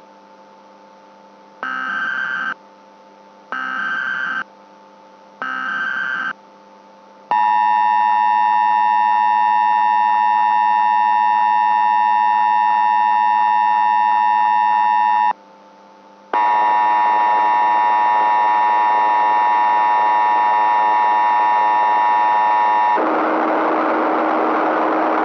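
Mock Emergency Alert System broadcast tones: three short bursts of the SAME header's data tones, about a second apart, then the long steady attention signal. After a one-second break a second steady tone follows, and near the end it gives way to a harsh, noisy hiss, all over a low electrical hum.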